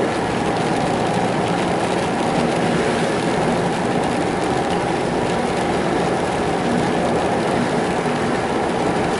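Steady noise inside a truck's cab while driving on a wet road: tyres running through water, with a low engine hum underneath.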